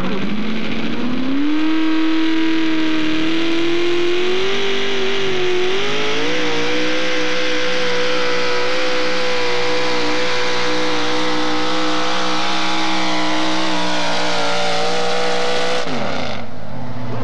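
Modified four-wheel-drive pulling truck's engine at full throttle under load as it drags the weight sled: the revs climb over the first several seconds, hold steady at a high pitch, then fall away sharply near the end.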